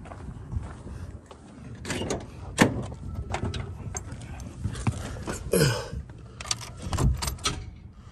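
Car door being opened and someone climbing into the driver's seat: a string of clicks and knocks with keys jangling, the loudest knock about two and a half seconds in.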